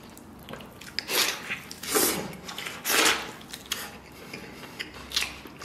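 Close-miked wet chewing and lip-smacking of tender stewed lamb, with a few louder smacks about a second apart.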